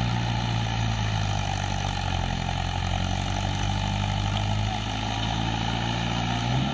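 Swaraj diesel tractor engine running hard at steady revs, labouring to drag a fully loaded trolley through mud. The engine note rises briefly near the end, then drops away.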